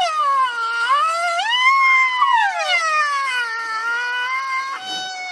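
Rhinoceros giving one long high whining call that slides down, rises, then falls again in pitch, breaking near the end into a shorter falling call.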